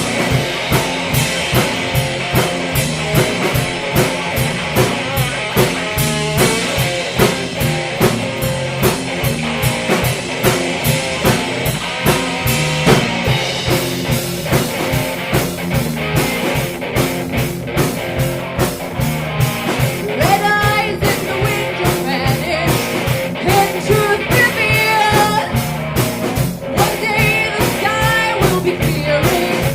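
Rock band playing: electric guitar and drum kit keeping a steady beat, with a voice singing over it from about two-thirds of the way in.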